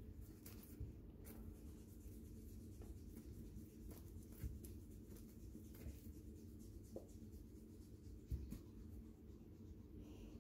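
Faint scratchy rubbing of a feathered toy mouse on a cord being dragged across carpet, with a few soft taps, the clearest about four and a half and eight seconds in, over a low steady room hum.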